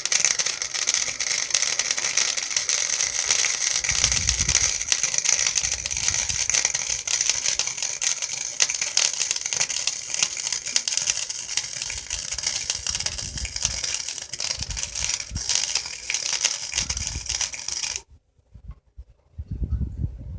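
Electric arc welder running a weld: a steady, dense crackling sizzle of the arc for about eighteen seconds, which stops suddenly near the end.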